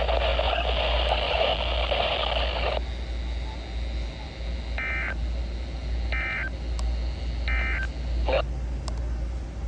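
NOAA Weather Radio SAME end-of-message code: three short warbling digital data bursts about a second apart, sounding over a weather radio receiver at the close of the weekly test. Before them, the broadcast's noisy audio runs for the first three seconds and then stops, and a click comes near the end as the radio cuts out.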